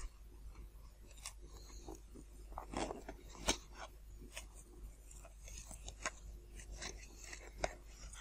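Hobby knife cutting through the polystyrene ceiling-tile foam of a model airplane's fuselage: faint, irregular crunching and scratching clicks.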